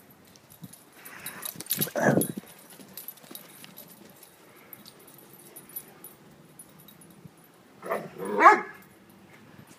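Great Dane puppies barking at play: one bark about two seconds in, and a louder pair of barks near the end.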